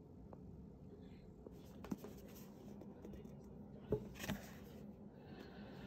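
A few soft knocks and taps of a book and tablet case being handled on a desk, about two seconds in and twice around four seconds, over quiet room tone.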